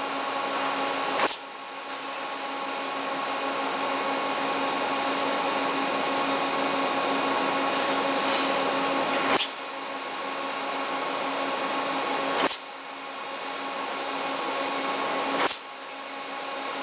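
CM85C-M SMT chip mounter running its start-up self-diagnostic test: a steady machine hum and whine. It is broken by a sharp click about 1, 9, 12 and 15 seconds in, and after each click the sound drops and slowly builds up again.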